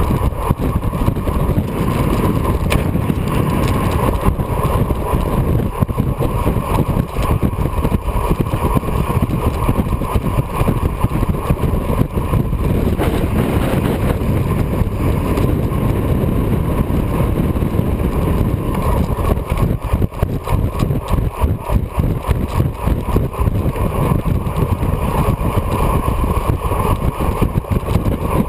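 Wind rushing and buffeting over the microphone of a camera mounted on a racing bicycle speeding downhill on asphalt, mixed with the noise of the bicycle tyres rolling on the road. It is a loud, steady, fluttering rush that does not let up.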